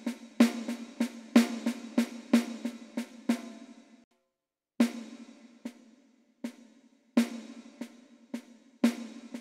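Roland TD-20 electronic drum kit played in a steady stream of eighth-note strokes in an accent exercise. A first passage is played the wrong way, then after a short break a passage played the right way, with a few loud accented strokes standing out from quieter ones.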